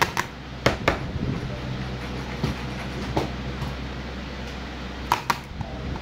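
Sharp clicks and taps from a circuit board and soldering iron being handled: two right at the start, two more just under a second in, one fainter about three seconds in and two near the end. A steady low hum runs underneath.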